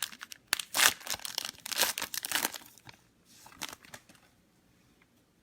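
Plastic wrapping on trading-card packs crinkling and tearing as it is ripped open, a quick run of rustles for about two and a half seconds, a few fainter ones after, stopping about four seconds in.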